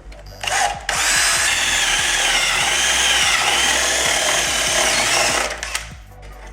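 Electric drill boring the cable opening in an electrical socket box: a short burst about half a second in, then about four and a half seconds of steady running with a whine that wavers in pitch.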